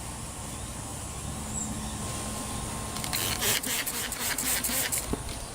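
Quick rubbing strokes, about four a second for two seconds, starting about three seconds in: spray-paint vandalism being scrubbed off a truck's paint after a product has turned it chalky.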